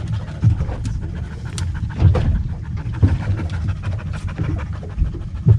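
Wind buffeting the microphone on an open boat at sea, an irregular low rumble, with a few faint knocks.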